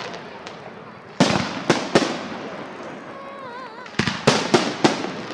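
Fireworks salute bursting overhead: three sharp bangs about a second in, then a quick string of about five bangs from about four seconds in, each trailing off in a fading echo.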